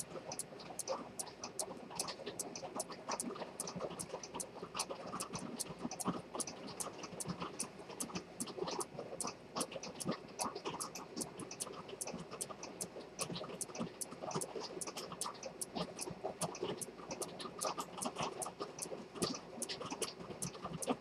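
Dent fusee pocket watch with a detent (chronometer) escapement ticking: a rapid, even run of sharp ticks.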